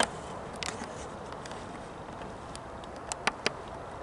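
Steady outdoor background noise with a few short, sharp clicks: one at the start, a pair just under a second in, and three in quick succession about three seconds in.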